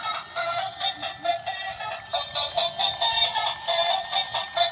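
A battery-powered light-and-music toy car's built-in sound chip playing a thin, tinny electronic tune with a synthesized singing voice and a quick steady beat, through a tiny speaker with no bass.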